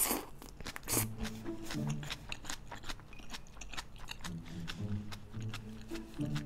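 Close-up chewing and wet mouth clicks from a mouthful of yeolmu bibimbap, with two louder mouth noises near the start, over soft background music.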